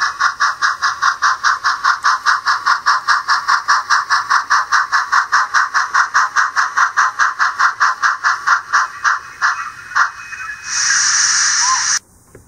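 Bachmann On30 Heisler model locomotive's sound decoder playing a steady, rapid steam chuff, about six beats a second, through the model's small speaker. The chuffing fades about nine seconds in, a burst of steady hiss follows, and it cuts off sharply near the end.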